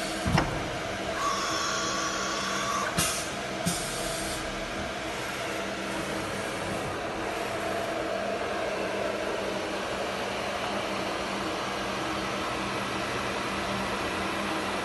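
CNC router running through its automatic tool-zeroing cycle: a steady machine hum, with a thump just after the start, a brief high whine, and two short pneumatic air hisses about three seconds in.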